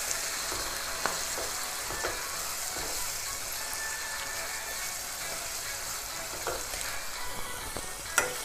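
Spiced onion-tomato masala sizzling in oil in a non-stick pan while it is stirred with a silicone spatula, with a few light knocks of the spatula on the pan and a sharper one near the end. The steady sizzle is that of a masala fully fried, with the oil separated from it.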